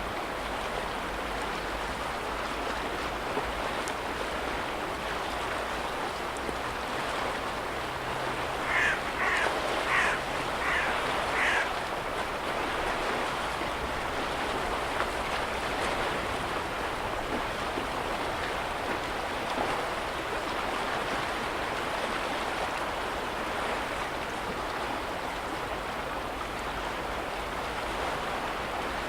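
Small waves lapping steadily on the lakeshore. A little under halfway through, a short run of about five brief high calls sounds over the water.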